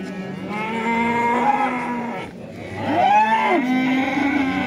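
Cattle mooing: two long moos, the first about half a second in, the second and louder one about three seconds in.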